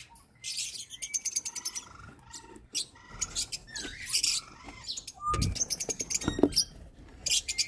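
Lovebirds chirping and chattering in quick, high-pitched bouts, with a couple of short handling knocks a little past halfway through.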